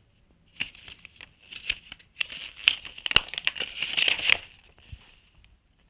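Folded paper user manual being opened out and handled: irregular crinkling and rustling of paper, with sharp crackles, loudest from about two to four and a half seconds in.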